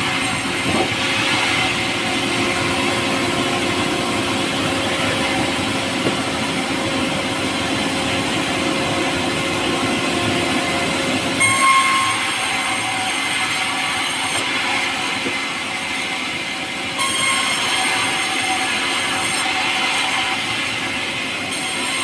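A saw running steadily through soft, light pulai wood, with a brief louder surge about halfway through.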